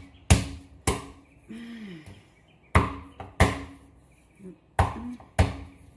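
Knife chopping raw stew pork on a cutting board: six sharp chops, coming in three quick pairs.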